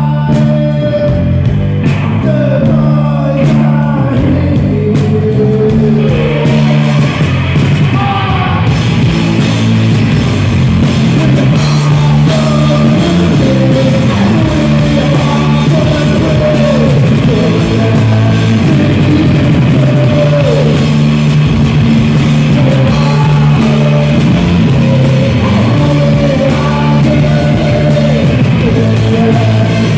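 Live rock band playing: electric guitars, bass and drum kit, with a man singing. The band's sound gets fuller and brighter about six seconds in.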